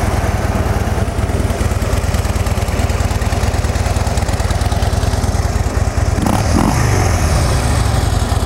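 2013 Harley-Davidson Dyna Street Bob's 103 cubic-inch V-twin idling steadily through its factory exhaust, a low, even pulsing beat that runs fairly quiet.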